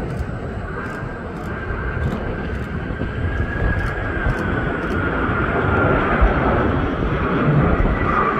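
Jet airliner coming in to land, its engines giving a rumble and a whine that grow steadily louder. The whine slowly drops in pitch in the second half.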